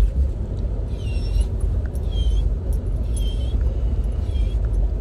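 Steady low rumble of a car heard from inside the cabin, with a faint short high chirp repeating about once a second.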